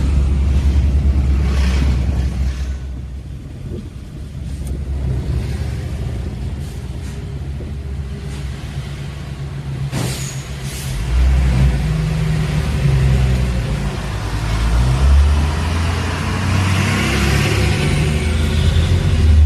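Suzuki Karimun hatchback on the move: a steady low engine and road rumble that eases off for a few seconds and then grows louder again, with one sharp click about ten seconds in.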